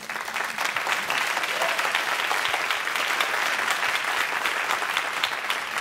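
An audience applauding, a steady dense clapping from many hands throughout.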